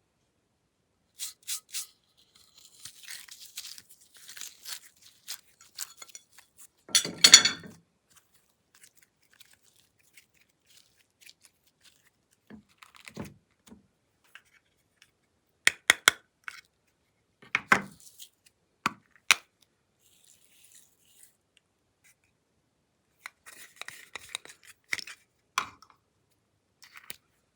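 Glossy slime being handled by hand, with scattered sticky clicks and crackles and quiet gaps between. The loudest is a short burst of crackling about seven seconds in.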